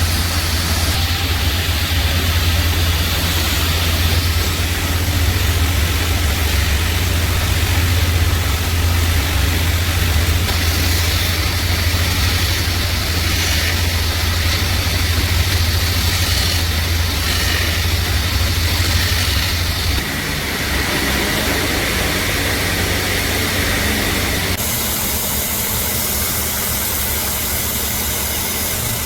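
A motor running steadily, with a strong low hum and a hiss above it. The hum weakens about two-thirds of the way through, and the sound changes again near the end.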